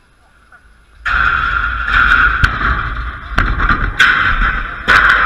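Sudden loud rumbling and scraping right at the microphone, starting about a second in, with several sharp knocks: contact noise on the fence-mounted camera as a player comes up against it.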